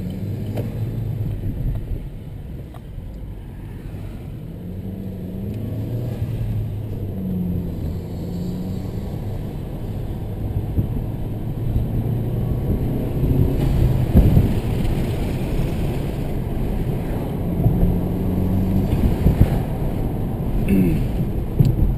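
Chevrolet Cruze 1.4-litre turbo four-cylinder engine, fitted with a K&N Typhoon intake, accelerating through the gears of its manual gearbox, heard from inside the cabin with the windows down. The engine note rises several times and drops back at each gear change, with a quick steep rise near the end. A rushing road noise grows in the second half as speed builds.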